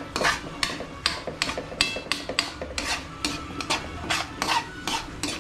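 A utensil scraping round a metal wok as coconut milk is stirred over low heat, in quick repeated strokes about three or four a second. This is the continuous stirring that cooks the coconut cream down into latik.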